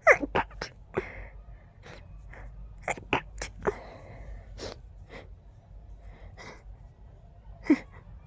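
A person's stifled sneezes in an allergy sneezing fit: short, sharp, fast bursts with quick breaths between. There is a cluster at the start, another about three seconds in, and a loud single sneeze near the end.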